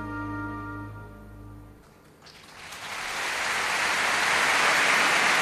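Soft background music with sustained tones fades out; after a brief near-silent gap, about two seconds in, a steady rushing hiss swells up and holds.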